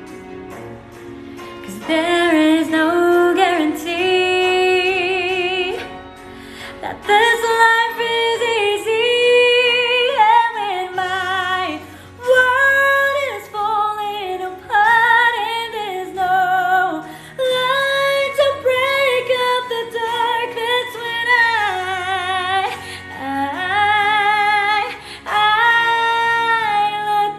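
A woman singing a slow song with strong vibrato over soft background music; the voice comes in about two seconds in and runs in long held phrases with short breaks.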